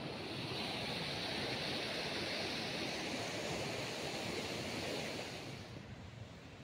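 Steady rush of flowing river water, turning to a quieter rush about five and a half seconds in.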